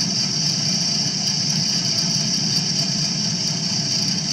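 Milling machine running steadily, taking a light finishing pass on a sprinkler-body window: a low hum with a steady high whine over it.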